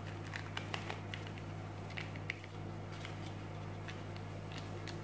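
Faint crinkling and small ticks of a paper sachet being torn open and shaken out over a mixing bowl, over a steady low hum.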